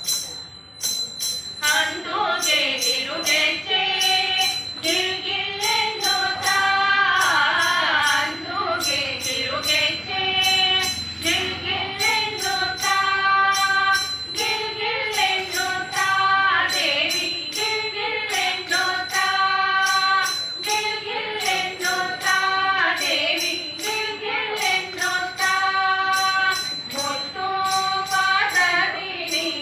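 A group of women singing a devotional bhajan together into microphones. Jingling hand percussion keeps a steady beat. The singing comes in about two seconds in.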